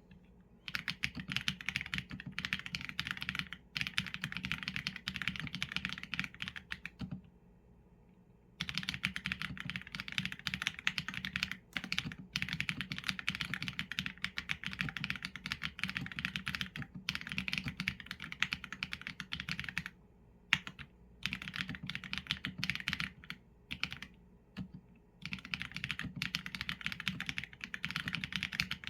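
Continuous typing on a Qsenn A75 mechanical keyboard with Leobog Graywood v4 linear switches and PBT keycaps: a dense patter of keystrokes in runs, broken by short pauses about seven seconds in, around twenty seconds and near twenty-five seconds.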